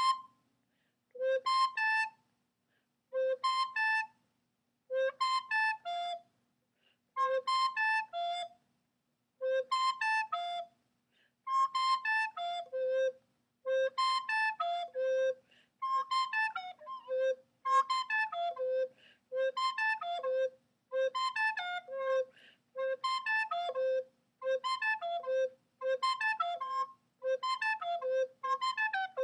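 Soprano recorder playing the same short figure over and over: low C leaping up to high C, then stepping down through A and F back to low C. The repeats come closer together as the tempo picks up, and at speed the tonguing loses control against the fingering.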